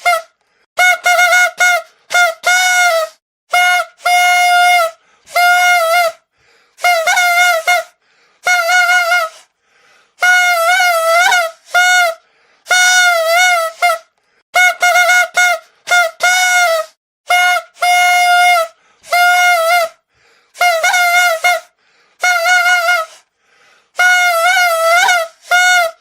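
Toy trumpet (torotot) blown in a long series of short, honking blasts, each about a second long with brief pauses between, all on one buzzy, slightly wavering note.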